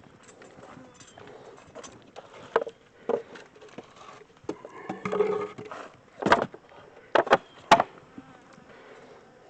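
Honey bees buzzing around the open hive close to the microphone, one flying past with a clear hum about five seconds in; the bees are agitated. A few sharp knocks stand out, the loudest between about six and eight seconds in.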